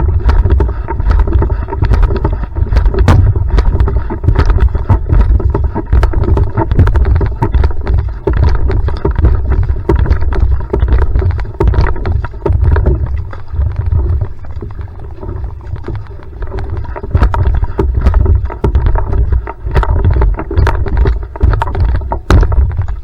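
Outrigger canoe (va'a) under a maximum-effort sprint: water rushing and splashing along the hull over a heavy low rumble, with many sharp knocks and clicks from the paddling. The sound eases a little about halfway through, then picks up again.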